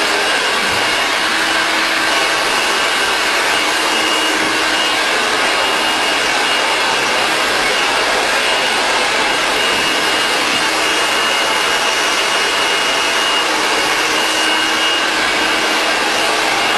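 Handheld hair dryer running steadily at close range while blow-drying hair: a constant rushing blast of air with a thin, steady high whine.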